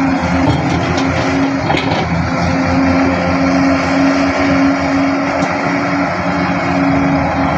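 Excavator's diesel engine running steadily with a constant drone, as it works loading a lorry.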